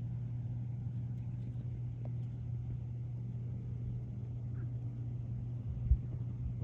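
A steady low mechanical hum, like a motor or engine running, with one short low thump about six seconds in.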